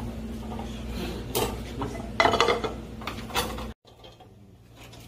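Metal clatter of a frying pan and cooking utensils on a gas range: a few sharp knocks and a short rattle over a steady low kitchen hum. The sound drops off abruptly about three quarters of the way through.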